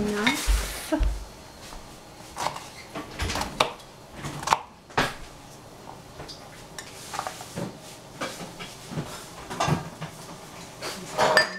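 Kitchen clatter from pots, dishes and utensils being handled: irregular knocks and clinks, with one louder knock about four and a half seconds in.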